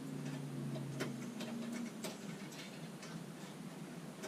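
A few faint, scattered clicks and light knocks of small hand tools being handled while a hook tool is picked out, over a low steady hum that dies away in the first couple of seconds.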